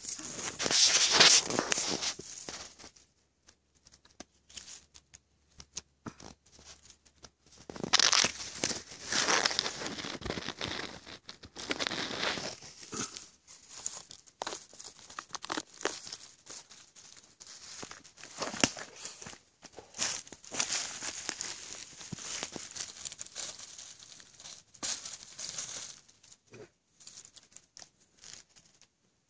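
Dry leaf litter rustling and crackling as a hand works through the forest floor around a mushroom, in irregular bursts. The loudest come about a second in and again around eight to ten seconds in.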